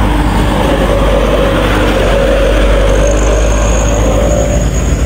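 Heavy cargo truck passing close by on the road, its engine running loud and steady, with a thin high whine joining about three seconds in.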